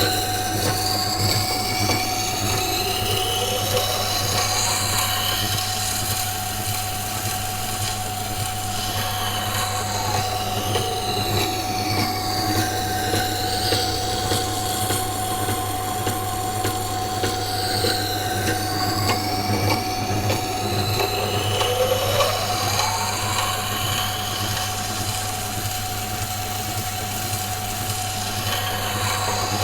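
Electric wet-stone grinder running with a steady motor hum while a carbon steel knife blade is drawn along the wet stone wheel, a continuous grinding scrape whose pitch slowly rises and falls as the blade moves across the wheel.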